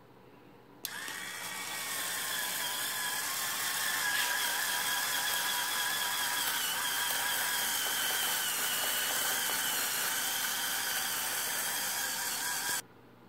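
Hurricane Spin Scrubber, an electric spin scrubber with an angled brush, switched on about a second in, its motor whining steadily as the spinning brush scrubs a door threshold. It switches off abruptly shortly before the end.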